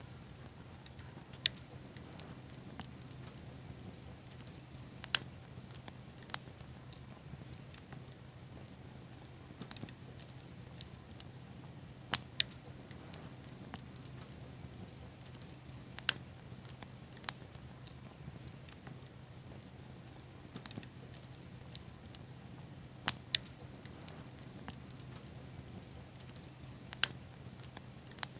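A small bonfire of pine cones and sweetgum seed balls burning quietly, with a sharp crackle or pop every couple of seconds, about a dozen in all.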